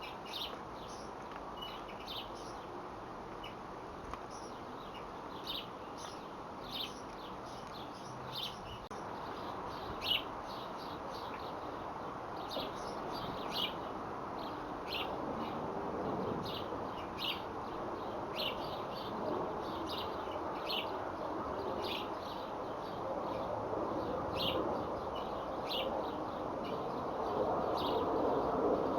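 Small birds chirping: short, high chirps repeated about once a second, over steady background noise that grows louder near the end.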